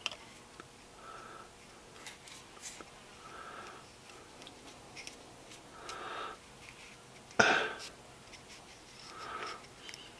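Soft breaths every two or three seconds over quiet handling of a dop stick and cabochon, with a few faint clicks and one louder short noise about seven and a half seconds in.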